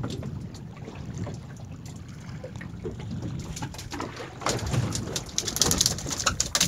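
Freshly landed tuna beating its tail against the boat's fibreglass floor. It starts about halfway through as a rapid, loud run of sharp taps over a low wash of wind and water.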